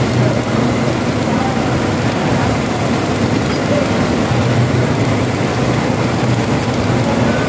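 An engine running steadily, a low even drone with no break.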